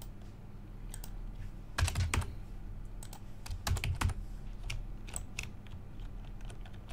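Computer keyboard being typed on: scattered single keystrokes, with two busier clusters about two and four seconds in, over a low steady electrical hum.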